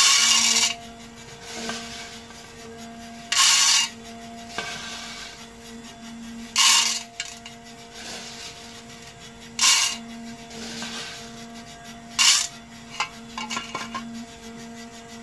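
Handfuls of freshly roasted coffee beans poured into a stainless steel funnel and rattling down into a glass jar, five pours about three seconds apart. Near the end come a few light ticks as single beans are picked out.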